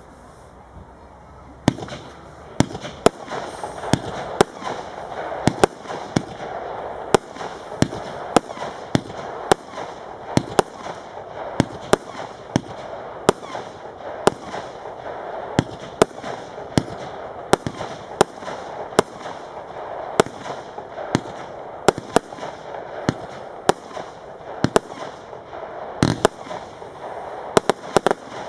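Royal Fireworks 'Royal Shining' consumer fireworks cake firing: about two seconds in, sharp shots begin and follow one another about twice a second, with a steady hiss between them. A quick flurry of shots comes near the end.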